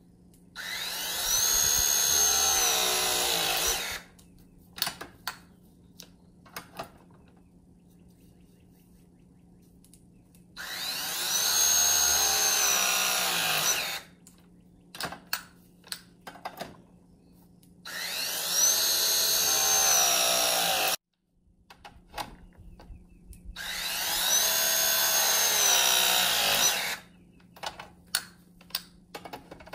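Milwaukee M18 Force Logic cordless press tool crimping copper press fittings: four press cycles of about three seconds each, the motor whine rising as each one starts. Sharp clicks fall between the cycles.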